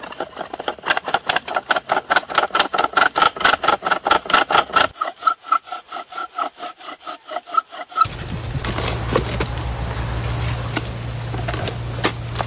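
Wooden friction fire drill: a spindle driven rapidly back and forth against a board, rubbing and squeaking in quick strokes about five a second. The strokes stop about eight seconds in, and a steady low hum with a rushing noise follows.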